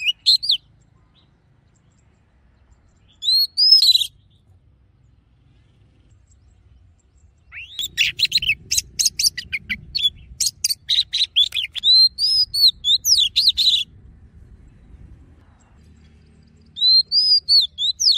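Oriental magpie-robin singing its wild-type song in separate phrases of clear, slurred whistles. There is a short phrase at the start and another about three seconds in, then a long, fast medley of whistles and sharp clicking notes from about seven to fourteen seconds in, and a last phrase near the end.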